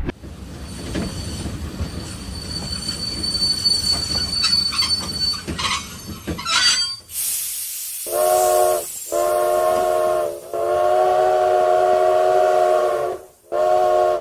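Train running with a steady high wheel squeal, then a short burst of steam-like hiss about seven seconds in. After that come four chord-like whistle blasts, the third held longest.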